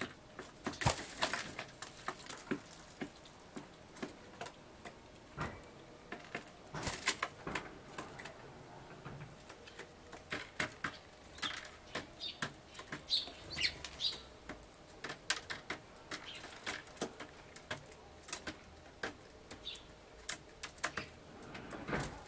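Oriental turtle dove pecking seed off a wooden bird-table board: a run of sharp taps. A flurry of wing flaps comes near the start as the dove jumps up in surprise at a tree sparrow. A few short high chirps sound about 13 seconds in.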